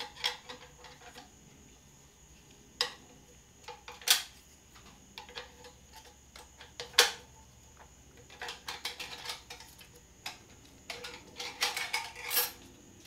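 Screwdriver prying a snap ring out of a 545RFE transmission case: scattered metal clicks and clinks, the loudest about seven seconds in, then a quick run of small clicks near the end.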